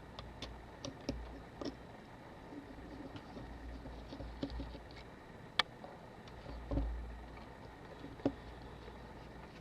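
Small clicks, ticks and light knocks of a camera body and small tools being handled while a Canon AE-1 is taken apart, with one sharper click about halfway through.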